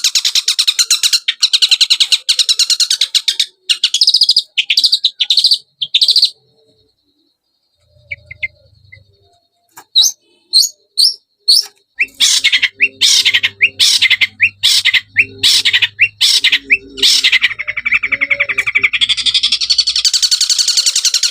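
Long-tailed shrike (cendet) singing a rapid chattering song of fast trilled runs. It breaks off about six seconds in. After a few seconds of near silence it picks up again with sharp single notes, then goes back into dense, fast runs.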